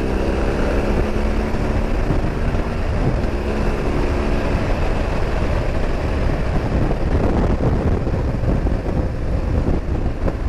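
Motorcycle ride on a BMW R 1200 GS, its boxer-twin engine running with a steady hum that is clear for the first few seconds and then mostly buried in heavy wind rush on the microphone.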